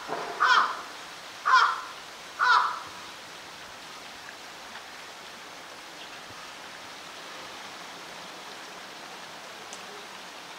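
A crow cawing: three harsh caws about a second apart in the first three seconds, then it stops, leaving a steady background hiss.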